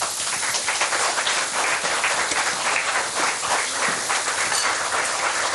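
Knöpfle frying in freshly added butter in a pan: a dense, steady sizzle and crackle, while a spoon stirs them through.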